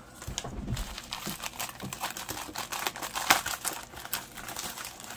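Plastic mailer envelope crinkling and crackling as it is handled and torn open by hand, in a rapid run of small crackles, the loudest about three seconds in.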